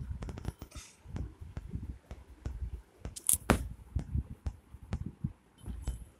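Close-up handling noise: irregular low thumps, rubs and clicks as a hand and phone brush against a cat and a bedspread, with a sharper rustle about three seconds in.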